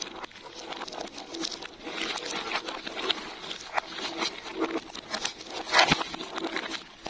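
Marbles rolling and clattering down a marble run: a dense stream of irregular clicks and rattles, with one louder knock about six seconds in.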